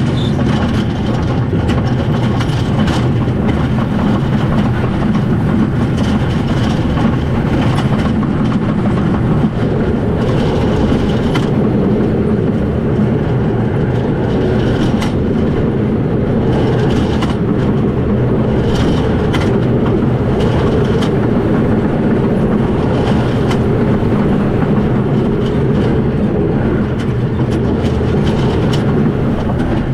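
Wooden roller coaster train running fast over steel-topped (Topper Track) wooden track: a continuous loud rumble with rapid clattering from its wheels.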